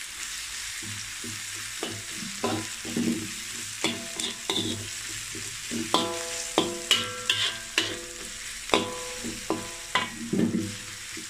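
Sliced onions, garlic, ginger and turmeric sizzling in oil in a metal wok while a metal spatula stirs them, scraping and knocking against the pan. The knocks ring briefly, a few early on and then coming quickly about halfway through.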